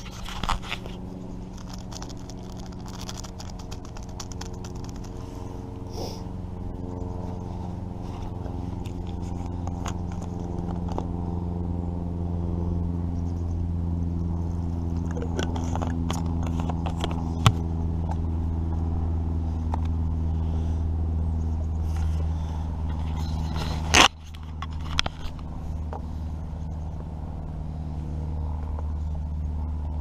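A steady, low engine drone that swells slowly over the first half, from an engine out of sight. Over it come light scrapes and clicks of a utensil against a metal mess tin, and one sharp knock about two-thirds of the way through.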